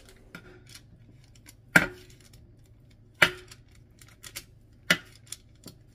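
Kitchen knife scoring a seitan loaf on a parchment-lined metal baking tray. Three sharp knocks about a second and a half apart as the blade strikes the tray, the first two with a short metallic ring, and fainter clicks between them.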